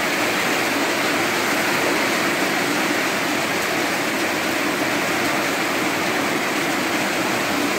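Torrential rain pouring down in a steady, loud downpour.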